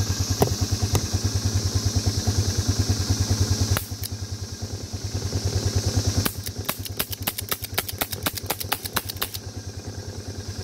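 Riding lawn mower engine idling with a steady low throb, while a CO2 air pistol fires: a sharp shot about four seconds in, then a quick string of about twenty sharp pops over roughly three seconds.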